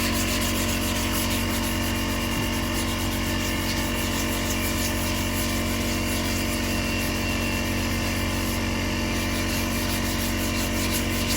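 Sandpaper scratching in quick, repeated strokes over a steady machine hum, as primed auto-body panels are sanded; the strokes pause briefly near the end.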